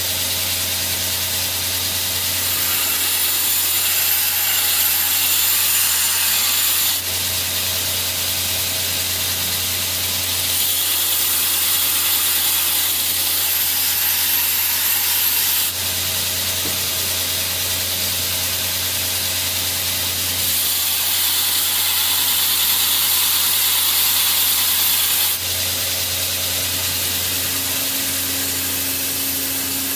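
Belt grinder running, with a steel blade cut from an old saw blade pressed against the abrasive belt: a steady grinding hiss over the motor's hum. The grinding swells and falls back three times.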